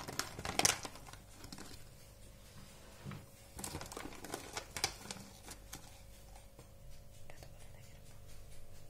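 Clear plastic bag crinkling as it is opened and handled, in short crackly bursts, loudest about half a second in, with a few more bursts around four to five seconds in.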